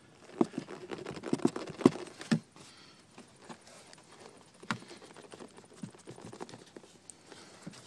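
Plastic wiring connector and corrugated harness loom handled by hand, with irregular clicks and knocks, busiest in the first couple of seconds and with one sharp click a little past the middle.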